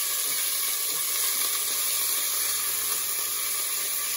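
Diced venison sizzling in very hot oil in a stainless steel pan, a steady frying hiss as the meat is seared to brown it. The pan is hot enough that the oil is smoking.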